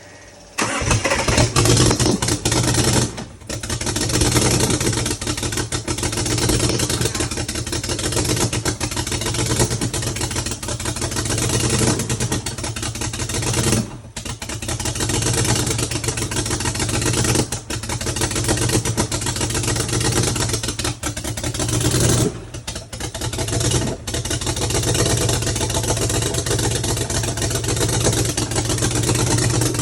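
BMW N55 turbocharged straight-six catching about half a second in on starting fluid, then running unevenly, with brief stumbles and dips in its note. The stumbling is taken for a misfire on one cylinder, and this engine has rod knock.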